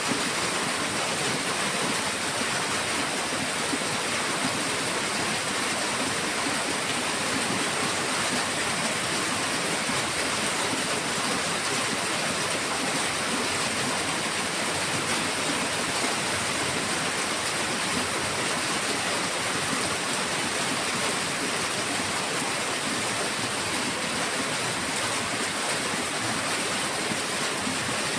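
Heavy rain falling in a steady, unbroken hiss, with no distinct drops or thunder.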